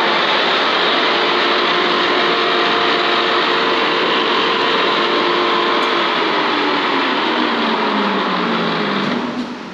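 Lucas horizontal boring mill running with an end mill at the end of its cut into a torch-cut hole in thick steel plate: a steady machine noise with whining tones. From about six seconds in the tones fall in pitch, and the noise drops off about nine seconds in.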